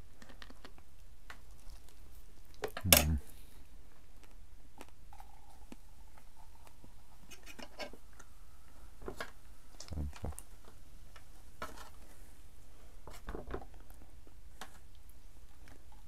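Light clinks and knocks of dishes and cutlery being handled, with one louder knock about three seconds in.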